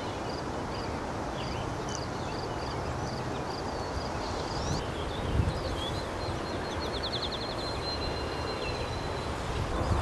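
Open-field ambience: a steady rush of wind-like noise with small birds chirping repeatedly, about two high chirps a second, then a quick trill and a thin, steady high note near the end.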